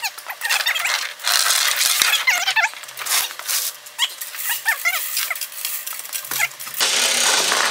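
Lifting chains and a bare cast-iron engine block squeaking, creaking and clinking as the block is rolled over in chain slings on a gantry hoist, with many short squeals and scattered clanks. Near the end a steady hissing noise sets in.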